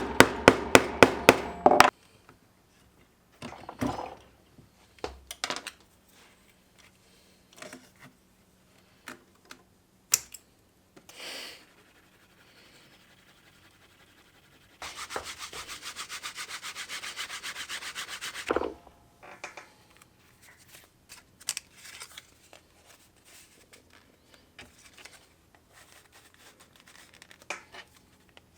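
Hand tools worked on leather in short bouts of rubbing strokes. There is a quick, regular run of strokes at the start, scattered taps and clicks, and about three and a half seconds of fast, steady rubbing strokes near the middle, like sanding or burnishing a leather edge.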